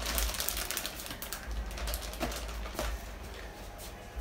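Plastic bag of shredded mozzarella crinkling and crackling as it is handled and shaken over the dish. The crackles come thick and fast for the first second or so, then thin out to scattered single clicks.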